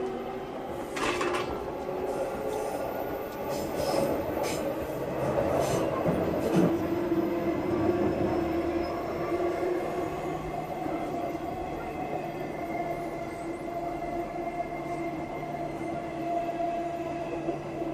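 Running sound inside motor car MoHa E231-901 of the JR East E231-900 series commuter train. The Hitachi IGBT VVVF inverter and traction motors hum at a steady pitch over wheel and rail noise. There are several short sharp clicks in the first seven seconds.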